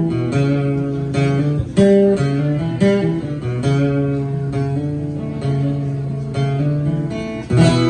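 Acoustic guitar strummed solo, chords ringing as the song's instrumental ending, with a louder strum near the end.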